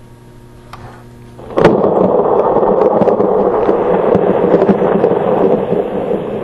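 Thunder: a sudden sharp crack about a second and a half in, then a loud rolling rumble that cuts off abruptly at the end.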